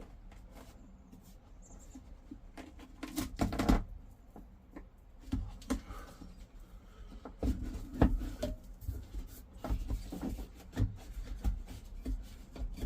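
Scattered knocks, clicks and scraping as a heater core is tugged and worked loose from its plastic heater box, where a foam gasket holds it. The knocks come in two louder clusters, about three seconds in and again about eight seconds in.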